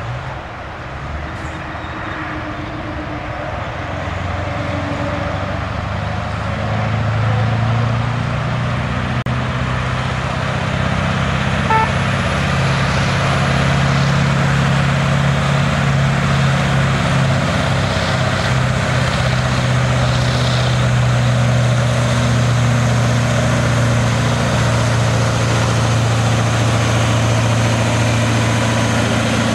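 Heavy-haulage tractor unit's diesel engine running steadily at low revs as it tows a multi-axle trailer with a heavy load, growing louder over the first eight seconds as it draws near, then holding steady close by.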